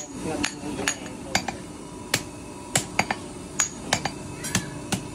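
Hand hammer striking red-hot steel on a post anvil while a billhook blade is forged. There are about ten sharp, ringing blows at an uneven pace, roughly two a second.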